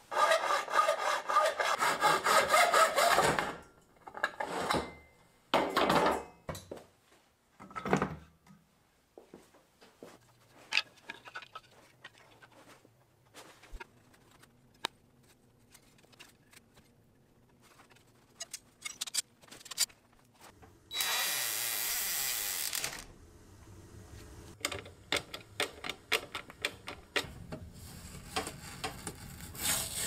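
Hand woodworking: quick back-and-forth rasping strokes of a tool on wood for the first few seconds, then a few shorter strokes. Scattered light clicks and taps follow, with a louder steady noise lasting about two seconds in the second half.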